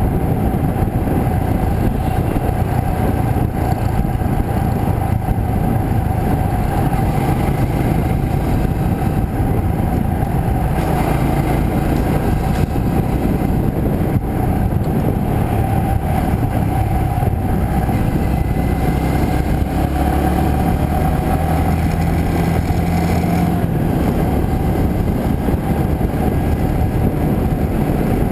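Motorcycle riding along a road, heard from on the bike: a loud, steady rush of wind and road noise over the engine's drone. The engine note rises for several seconds in the second half, then drops back.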